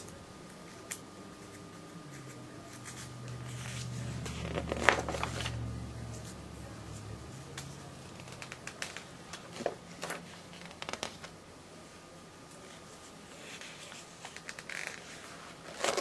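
Stiff paper catalog pages being handled and turned, with scattered rustling and crinkling and a louder rustle about five seconds in. A low rumble swells and fades in the first half.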